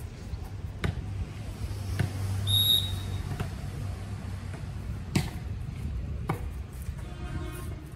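A volleyball being struck during play: four sharp slaps spread over the few seconds, with a brief high whistle-like tone between the first two hits.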